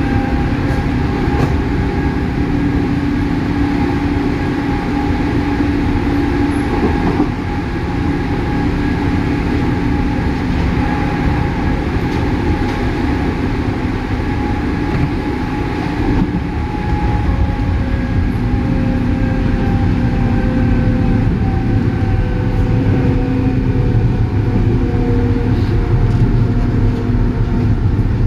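JR 103 series electric multiple unit running, heard from inside the car: a steady rumble of wheels on rail with motor and gear whine, whose tones slowly fall in pitch. The low rumble grows a little stronger in the second half.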